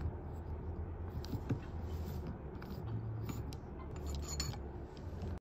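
Planetary gearset with white plastic planet gears and a steel ring gear being turned and handled by hand: scattered light clicks and ticks of gear teeth and parts over a low steady rumble, with a small cluster of clicks near the end.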